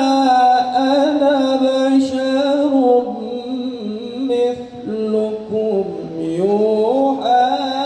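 A man reciting the Quran in the melodic tilawah style, amplified through a podium microphone. He draws out long ornamented notes that waver and glide, drops to a lower pitch about three seconds in, and climbs again near the end.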